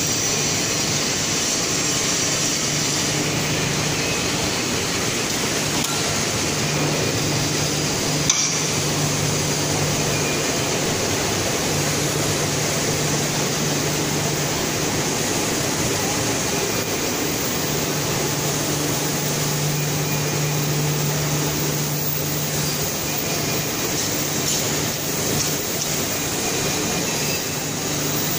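Steady machinery noise from a continuous mercerising range running in a textile mill: an even drone with a low hum that comes and goes, and one short sharp click about eight seconds in.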